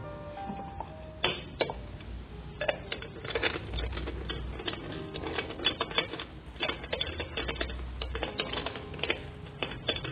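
Rapid, irregular clicking and clattering that starts about a second in, over faint music with a few held notes.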